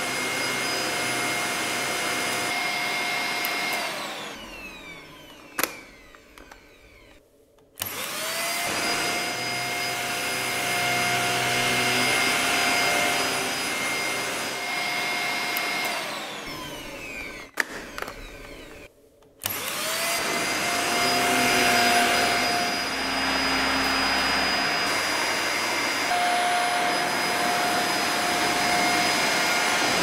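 Dyson Small Ball upright vacuum cleaner running with a steady whine over rushing air. Twice its motor winds down, falling in pitch, with a click, and goes nearly quiet for a couple of seconds. Each time it then starts again with a rising whine that levels off.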